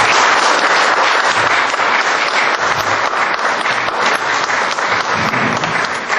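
Audience applauding: many people clapping at once in a dense, steady patter that eases slightly near the end.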